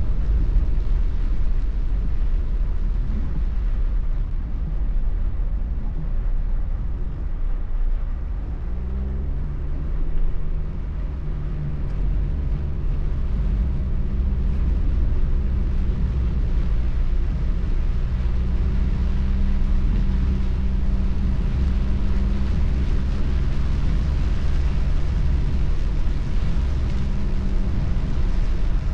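Car interior noise while driving in the rain: a heavy low engine and road rumble, with the engine note rising about nine seconds in as the car pulls away, then a steady engine hum over tyre hiss on the wet road.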